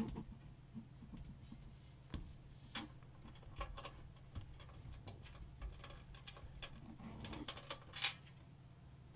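Light, scattered clicks and taps of small metal motherboard standoffs being handled and fitted into a PC case, the sharpest about 8 seconds in, over a faint steady low hum.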